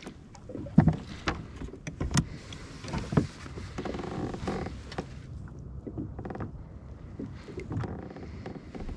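Fishing gear worked by hand in a kayak: a fishing reel being wound and the rod handled, giving scattered sharp clicks and knocks, the loudest in the first few seconds.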